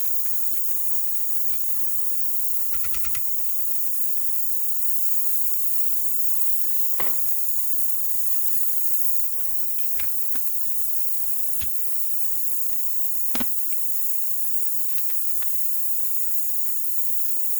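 Steady high-pitched hiss, with a few sharp clicks and taps: a quick little cluster about three seconds in, then single ones scattered through.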